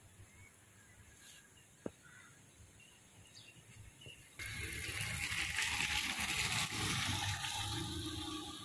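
A van's tyres swishing through standing floodwater as it drives past, the water noise starting suddenly about halfway in and staying loud. Before that, only faint background with a single click.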